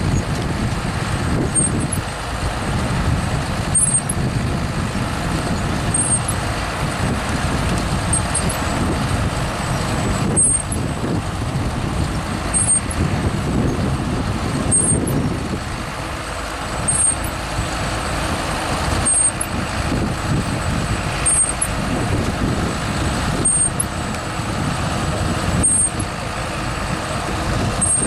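John Deere 7830 tractor's six-cylinder diesel running steadily under load as it pulls a Grimme SE 170-60 twin-row potato harvester, with the harvester's digging and elevating gear running at the same time.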